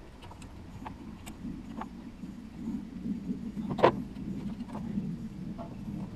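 Light metal clicks and clinks of a hand wrench working the bolts of a 1951 Mercury's thermostat water neck, with one sharper clink about four seconds in, over a low, uneven rumble.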